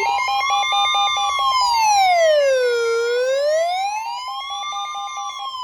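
Electronic warning siren wailing, its pitch slowly rising and falling about once every four seconds, layered with rapid beeping and a steady high tone. The siren and beeping cut off sharply at the end, leaving the steady tone.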